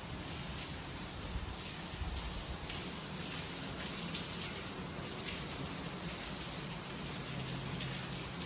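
Steady rain falling, with scattered drops pattering on surfaces.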